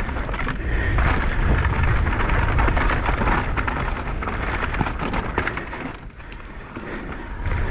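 Mountain bike rolling fast down a dirt trail: knobby tyres crunching and crackling over loose dirt and stones, with the bike rattling and wind rumbling over the microphone. The noise eases briefly about six seconds in, then picks up again.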